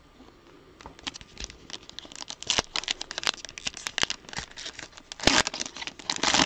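Foil wrapper of a Panini Prizm trading-card pack being torn and crinkled, amid quick small clicks of cards being handled. Two longer rustles come about five and six seconds in.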